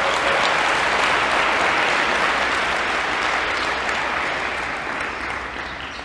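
Audience applauding, the clapping tapering off near the end.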